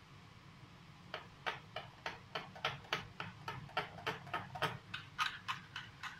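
Metal fork beating flour and water in a small glass bowl, clicking against the glass about three to four times a second, starting about a second in. The flour is being worked into the water so that it forms no lumps.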